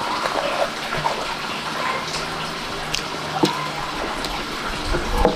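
Close-up wet chewing and mouth sounds of a person eating stuffed bitter melon, with small scattered clicks.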